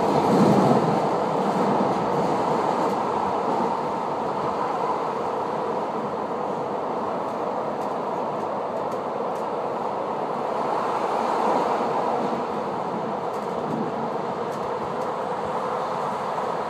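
Commuter train heard from inside the carriage, running at speed: a steady rumble of wheels on rails, louder for the first second or so and swelling again briefly about two-thirds of the way through.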